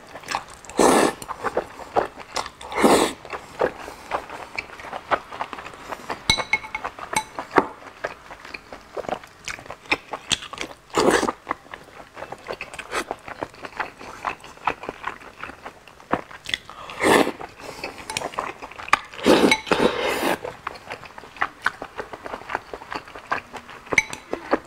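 A person eating close to the microphone: several loud slurps of noodles and broth, between wet chewing and biting, with chopsticks clicking against a bowl.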